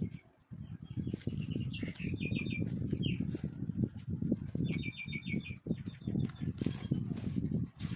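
Small birds chirping in short quick series of high notes, over a steady uneven low rumbling noise.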